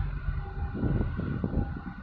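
Wind buffeting the microphone in uneven low gusts, over a faint steady hum of engines from the harbour tug and container ship moving close by.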